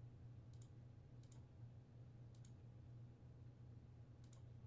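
Faint computer mouse clicks, a single one and then three pairs, over a low steady hum.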